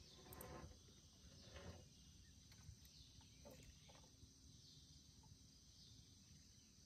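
Near silence: faint outdoor ambience with a steady, high-pitched insect hum.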